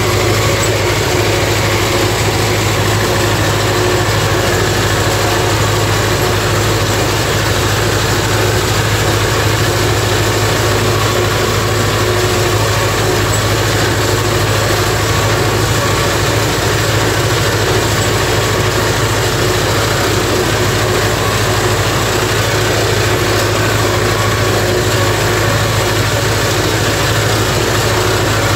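Belarus MTZ-50 tractor's four-cylinder diesel engine running steadily at an even speed, heard from inside the cab while it works a ZTR-165 rotary mower. The level holds constant with a strong low hum and no change throughout.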